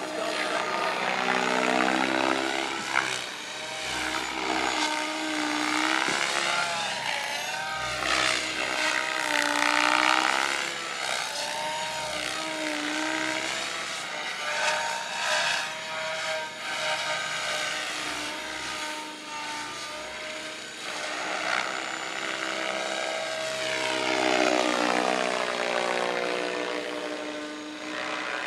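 Electric 700-size RC helicopter in flight: its rotor and motor whine sweeps up and down in pitch again and again as it passes to and fro and manoeuvres.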